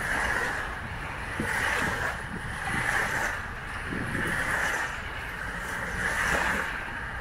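Small wind-driven waves lapping and breaking on a sandy river shore, swelling and easing every second or two, with wind rumbling on the microphone.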